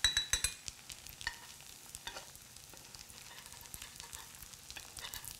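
Ravioli frying in foaming brown butter in a skillet, with a steady faint sizzle. A quick run of sharp clicks right at the start and a few single knocks later are a metal spoon against the pan as the ravioli are lifted out.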